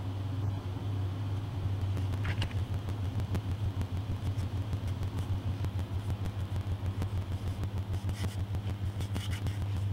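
A steady low electrical hum with a rapid rhythmic rubbing over it, about five strokes a second, starting about two seconds in: a paintbrush being scrubbed over a plastic model's brick wall.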